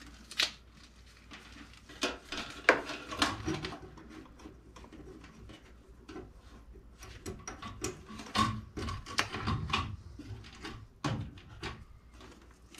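Scattered knocks, clicks and clatter of tools and metal furnace parts being handled during reassembly, in two busier spells with a low steady hum beneath.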